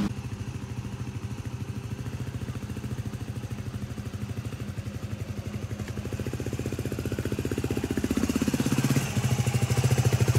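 Yamaha WR250X's 250 cc single-cylinder four-stroke engine idling with an even, rapid pulsing, growing louder toward the end as the bike is walked closer.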